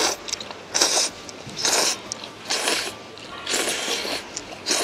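A person slurping udon noodles, with short airy slurps coming about once a second.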